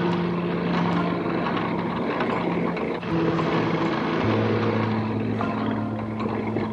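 Background music with sustained low notes that change pitch in steps every few seconds, over a steady noisy hiss.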